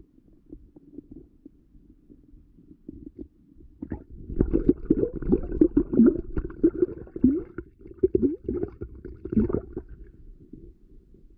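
Muffled underwater sound of a shallow stream heard through a submerged camera's housing: a low, steady rumble, with a louder run of knocks and gurgles from about four to ten seconds in.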